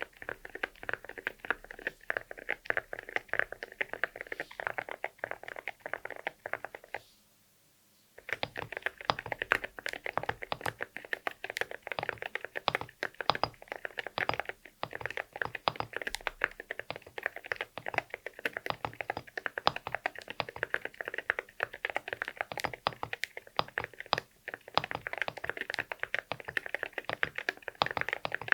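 Fast typing on a mechanical keyboard with Akko Rosewood linear switches and ceramic keycaps: a dense run of sharp key clacks, stopping briefly about seven seconds in, then resuming.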